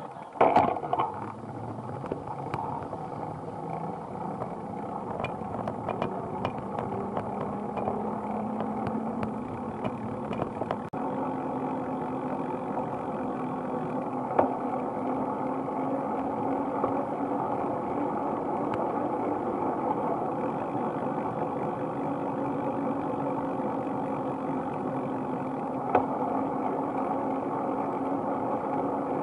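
Steady riding noise from a camera on a moving bicycle: wind and tyres rolling on a wet path. Now and then the bike knocks or rattles over a bump, the loudest just after the start.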